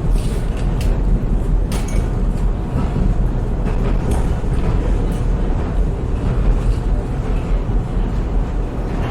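Train running on the rails: a steady low rumble with a few sharp clicks.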